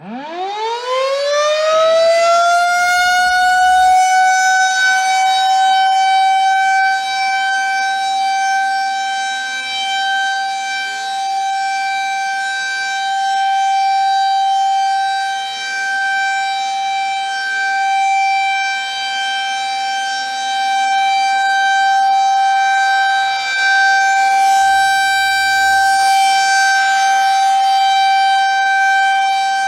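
Federal Signal 2001 rotating electromechanical tornado siren winding up from silence, its pitch rising steeply over the first few seconds, then holding one steady high tone, loud and slowly swelling and fading. It is sounding its scheduled monthly test.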